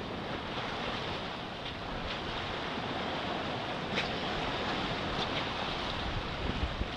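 Sea water rushing and splashing along the hull of a sailboat under way, with wind buffeting the microphone as a steady rushing noise.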